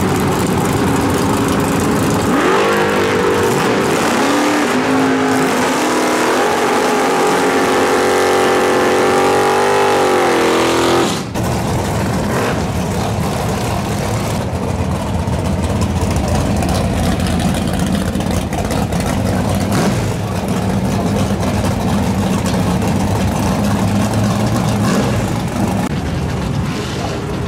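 Drag car launching off the line and accelerating down the strip, its engine note climbing and dropping back at each of several gear changes. About eleven seconds in it cuts to a steady low rumble of race-car engines running at low speed.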